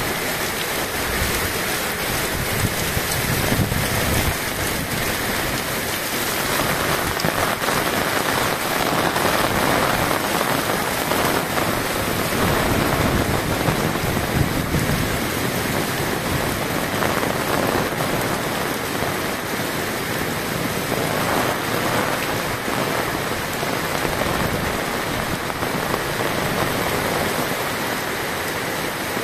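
Heavy, wind-driven rain pouring down onto a street and pavement in a continuous hiss. It grows heavier for several seconds in the middle.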